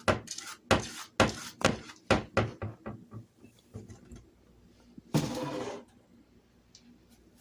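A hard object bouncing on a hard surface, its knocks coming quicker and fainter until it settles. About five seconds in there is a brief rustle or scrape.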